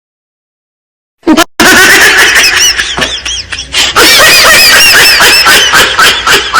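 Silence for about a second, then loud, high-pitched laughter, repeated quick rising-and-falling squeals.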